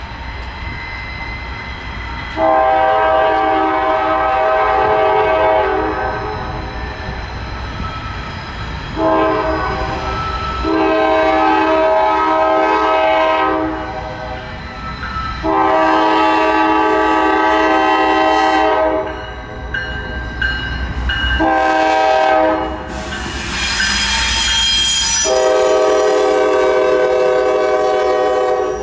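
Horn of a Norfolk Southern GE Dash 9-44CW diesel locomotive sounding a series of long blasts with two short ones, over the low rumble of the approaching train. The last four blasts, long-long-short-long, match the standard grade-crossing signal.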